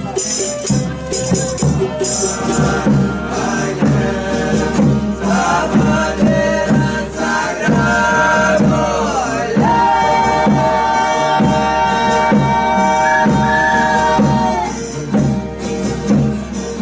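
Folia de Reis music: voices singing in harmony over rhythmic guitar strumming and tambourine jingles. Near the middle two voices hold one long note together for about five seconds, the upper voice sliding up just before it stops.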